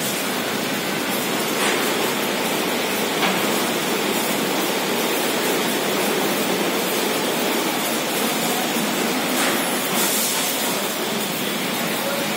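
ATS ELGI automatic rollover car wash running, its rotating brushes scrubbing a car under water spray: a steady rushing noise.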